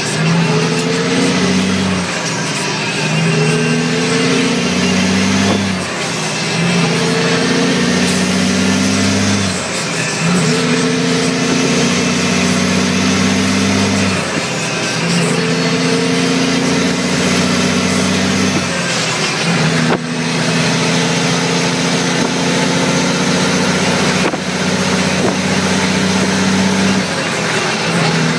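Caterpillar C15 inline-six diesel in a 1998 Western Star 550 truck pulling up through the gears, heard from inside the cab. The engine note climbs for a few seconds, then drops at each upshift, about six times, with each gear held a little longer than the last.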